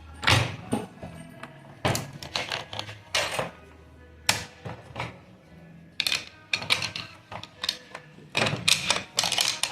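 Sharp metal knocks and taps as tools work on a Chevrolet Cobalt manual gearbox to free the reverse gear. They come singly at first, then in quicker runs in the second half.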